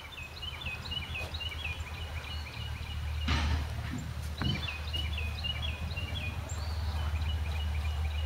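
A songbird singing: three phrases of short, quickly repeated high chirps, each about two seconds long, over a low steady rumble. About three seconds in there is a brief rustle, and a faint click follows a second later.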